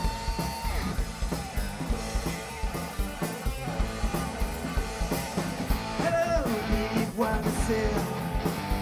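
Heavy metal band playing live: electric guitars, bass guitar and drum kit with a steady beat.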